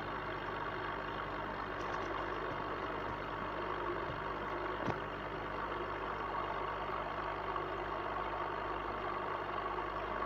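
Steady mechanical hum with a few fixed tones, and one faint click about five seconds in.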